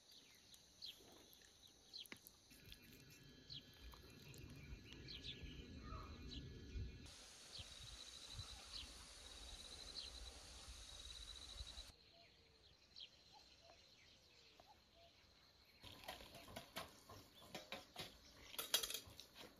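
Faint outdoor ambience with scattered short bird chirps, the background changing abruptly several times. Near the end come a series of sharp clicks and knocks.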